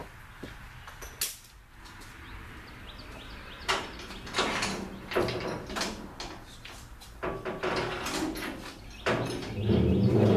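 Irregular metal clanks, rattles and sharp knocks from a small utility trailer's gate and fittings being handled. Music with low held notes comes in near the end.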